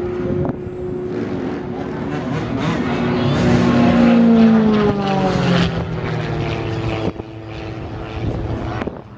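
Extra 330L aerobatic plane overhead, its six-cylinder Lycoming engine and propeller droning through an aerobatic climb. The note swells to its loudest about four seconds in, then slides down in pitch.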